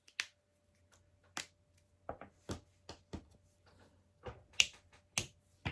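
LEGO plastic pieces clicking and tapping as wheels are handled and pressed onto a model: about ten short, irregular clicks.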